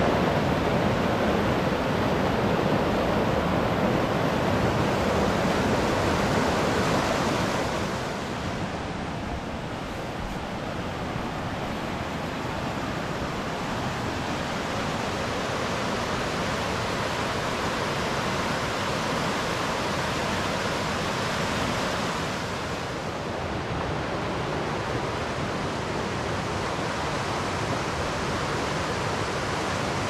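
Steady rush of fast-flowing creek water. The level drops a little about eight seconds in and again about twenty-two seconds in.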